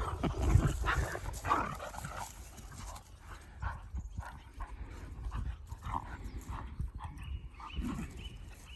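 Two dogs play-fighting, giving short, scattered yips and whimpers, busier in the first couple of seconds and then sparser and fainter.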